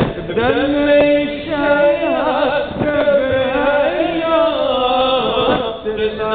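Male voice chanting an Arabic latmiyah, a Shia mourning lament for Imam Hussain, in long melodic lines with held, wavering notes.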